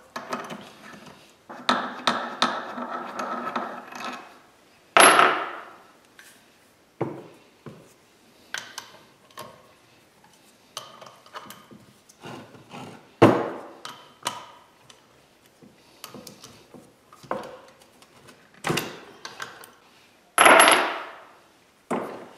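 A ratchet and socket loosening the bolts that hold a two-piece brake caliper together: a run of ratchet clicking early on, then separate metallic clicks, clinks and clanks as tools and bolts are handled and set down. The loudest clanks come three times and ring briefly.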